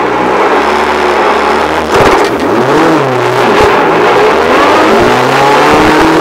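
Renault Clio R3 rally car's engine, heard from inside the cabin, held at a steady note. About two seconds in it breaks into hard acceleration, with the revs climbing and dropping repeatedly as it pulls through the gears.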